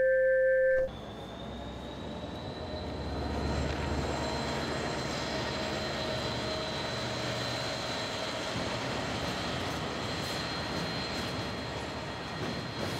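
Class 66 diesel-electric freight locomotive 66106 approaching along the line, its engine and wheels making a steady rumble that swells a few seconds in, with a steady high whine over it. A short tail of electronic music ends within the first second.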